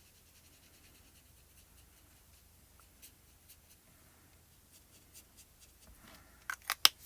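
Faint scratching of a watercolour brush marker colouring on paper, followed near the end by a few sharp clicks, one much louder than the rest.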